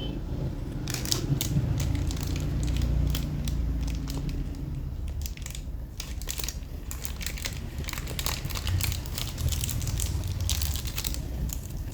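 Close handling noise: irregular crinkling and crackling with many small sharp clicks, over a low steady hum.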